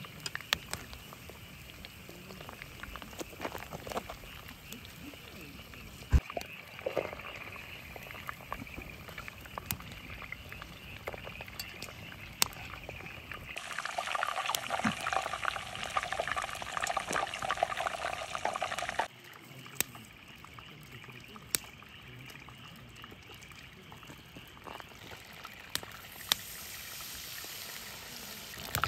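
Hot oil bubbling and sizzling in a cast-iron pot as pieces of rainbow trout deep-fry over a campfire, with scattered sharp pops. A louder, fuller stretch of bubbling comes in the middle and cuts off abruptly.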